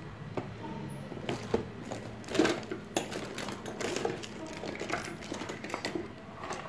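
Irregular light clicks, knocks and rubbing of plastic and metal parts as a partly reassembled electric fan motor and its housing are handled and turned by hand.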